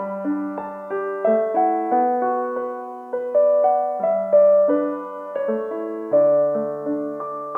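Background piano music: a melody of single notes over chords, each note struck and fading away.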